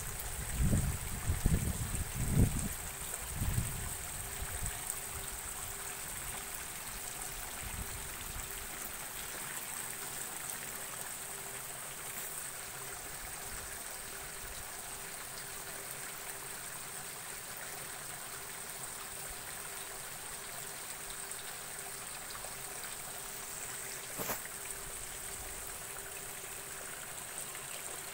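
Water trickling steadily from the ends of hydroponic lettuce channels into the collecting gutter below, with a few low thumps in the first few seconds.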